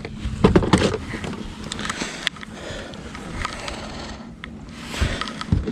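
Scattered knocks and scrapes as a freshly caught striped bass is handled and laid on a measuring board.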